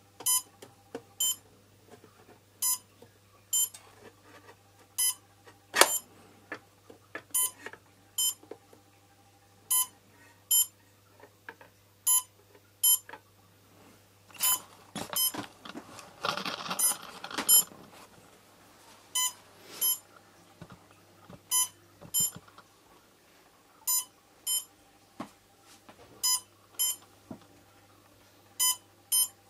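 Short electronic beeps from a powered-up quadcopter's electronics, coming in pairs about every two and a half seconds over a faint steady hum, with a stretch of handling rustle a little past halfway.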